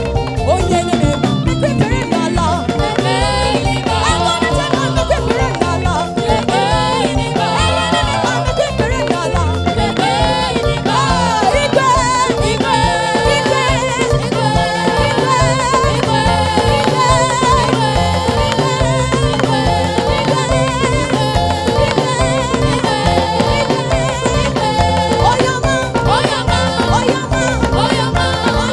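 Live gospel praise music: voices singing over drums with a steady beat.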